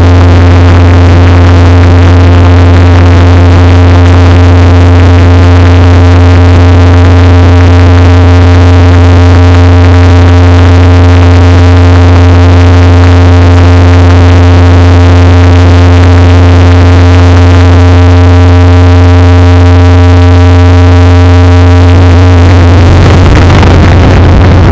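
Dark ambient noise music: a loud, steady synthesizer drone with a strong low hum and a few held higher tones over a hiss. About 22 seconds in the higher tones stop, leaving the low drone and noise.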